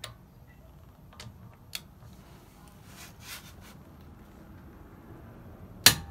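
Click-type torque wrench being pulled on a lug nut: a few faint ticks, then one sharp click near the end as the wrench breaks over at its set torque of 129 lb-ft (175 N·m), the sign that the nut is properly torqued.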